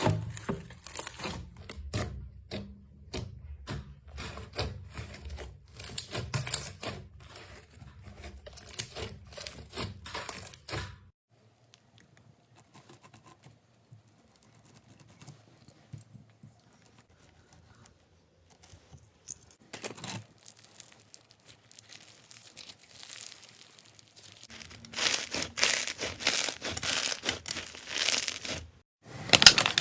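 Slime being squeezed and stretched by hand. First a dense run of crackling clicks and pops, then a stretch of faint, quieter handling, then loud crinkly, tearing-like crackle near the end.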